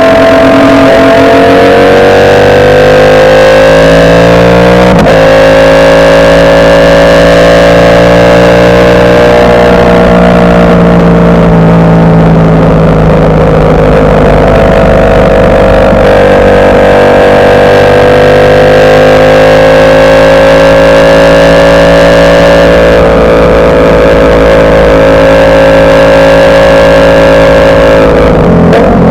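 Ducati Panigale V4 superbike's V4 engine running loud under way, its pitch rising and falling slowly with the throttle, with a quick gearshift about five seconds in and another near the end.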